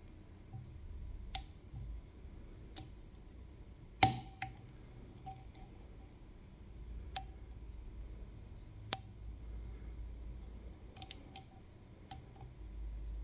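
Scattered sharp clicks from lock picks working a CISA AP3 pin-tumbler lock: metal tools ticking against the pins in the keyway, about eight clicks, irregularly spaced, the loudest about four seconds in.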